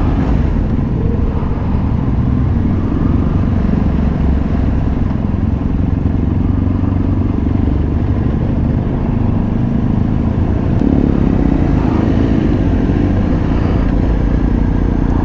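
Motorcycle engine running at low town speed, heard from the rider's own bike with low wind rumble on the microphone; the engine note rises and falls briefly about twelve seconds in.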